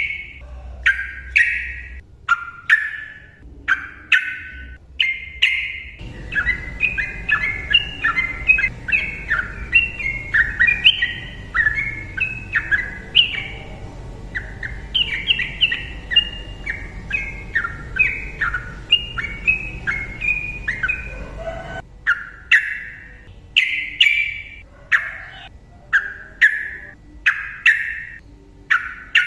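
Yellow-vented bulbul singing loud, chattering phrases. From about 6 s to about 22 s the notes run together into one fast, unbroken stream over a low hum. Before and after that stretch the phrases come separately, a few each second.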